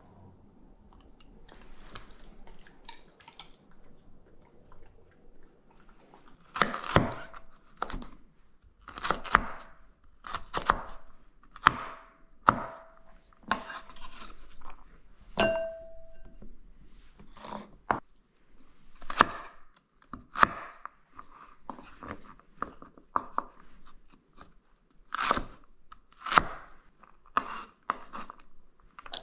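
A chef's knife chopping celery on a wooden cutting board. After a few quieter seconds come sharp, irregular chops, about one a second, each a crunch of the stalk and a knock of the blade on the board.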